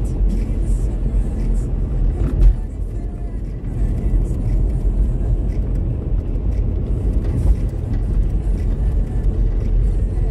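Steady low road and engine rumble heard inside a moving car's cabin, with one thump about two and a half seconds in, as from a bump in the road.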